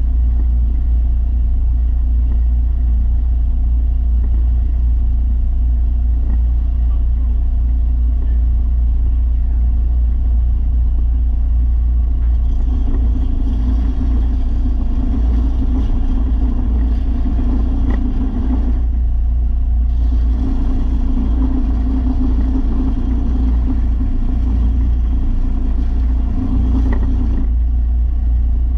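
Belt sander with a 300-grit belt running with a steady low motor hum. About halfway in, the grinding of a steel mower blade against the belt joins it, breaks off for about a second, then resumes until near the end.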